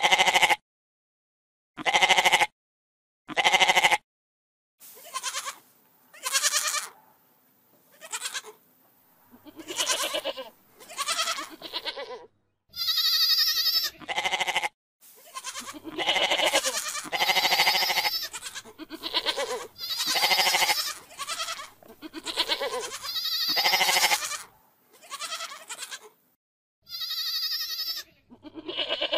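Domestic goats bleating many times over. Three short, loud bleats come in the first four seconds, then a long run of bleats, some short and some drawn out, several higher and thinner in pitch.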